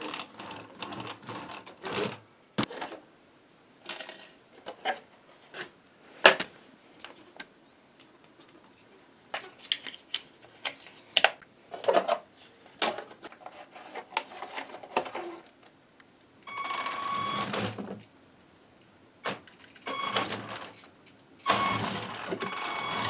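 Sharp plastic clicks and knocks as wheels are fitted onto an RC car's axles and fastened. Then a small electric motor whines steadily for about a second and a half, and whines again in short spells near the end as the car's wheels are run.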